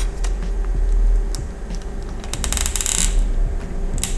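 Light plastic clicks from a car instrument cluster being handled, with a quick rattling run of clicks about two and a half seconds in, as a gauge needle is pressed and turned onto its shaft.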